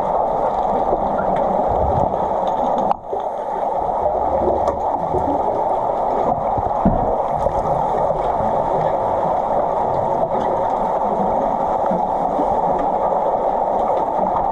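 Muffled underwater noise picked up by a camera submerged in a swimming pool during play: a steady rush of churning water with scattered dull knocks, briefly dropping out about three seconds in.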